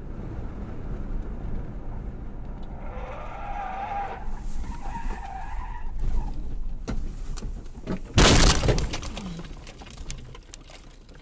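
A car's tyres squeal as it skids, then a loud crash about eight seconds in as it leaves the road into brush and trees, followed by branches cracking and scraping against the body, fading out. Heard from inside the car through a dashcam.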